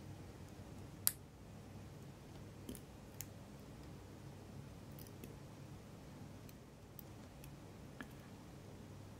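Scattered small, sharp clicks and taps of watchmaking tools handling the parts of a watch movement, the sharpest about a second in, over a low steady hum.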